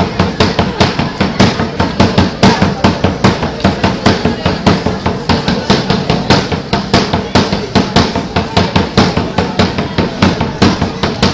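Drums beating a fast, steady cheer-dance rhythm, about four loud hits a second.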